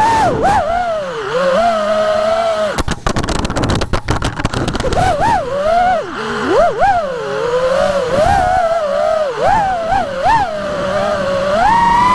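FPV racing quadcopter's brushless motors whining, the pitch swooping up and down quickly with the throttle. There is a burst of crackling about three seconds in.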